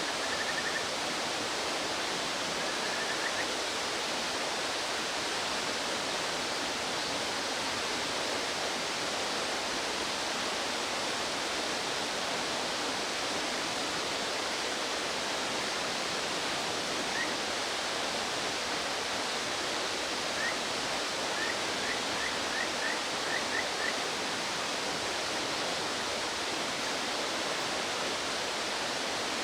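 Rushing stream water, a steady even hiss throughout. Over it, a few short high chirps near the start and a quick run of about seven chirps about two-thirds of the way through, typical of brown dippers.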